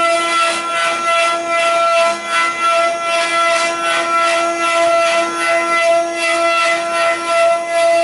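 Multi-head CNC wood carving machine, its spindles routing turned wooden spindles on rotary axes: a steady spindle whine with a rough, uneven cutting noise over it.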